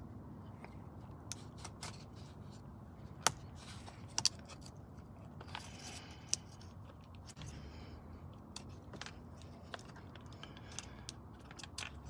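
Scattered small sharp clicks and taps of a metal pick working the locking clips of the airbag's plastic wiring connectors as they are unplugged, the loudest a few seconds in.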